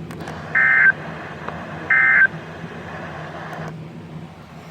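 Emergency Alert System end-of-message data bursts: two short, loud bursts of warbling digital tones about a second and a half apart, the last of the three-burst sequence that closes the alert. A steady low hum from the broadcast runs under them and drops away near the end.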